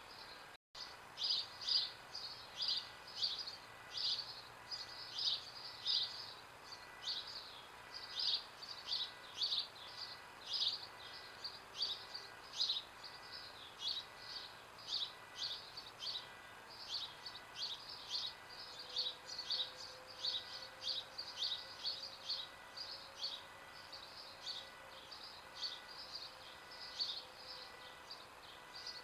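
A bird chirping over and over, short high calls about two a second that keep on without a pause.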